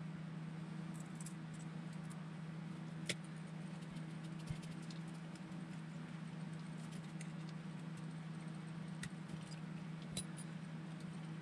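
A few scattered light clicks and taps of small RC car suspension parts being handled on the bench, over a steady low hum.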